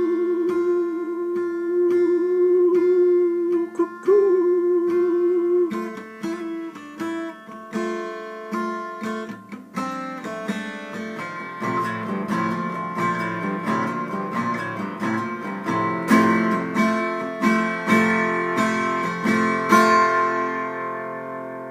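Acoustic guitar in D standard tuning being played. A long, wavering held note runs over sparse picked notes for the first few seconds. From about ten seconds in come busier picked and strummed chords, ending on a chord that rings out and fades.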